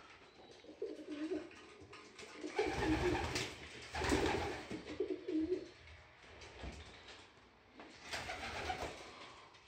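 Domestic racing pigeons cooing in a loft, in several repeated bouts, with a muffled low rumble under the loudest cooing in the middle.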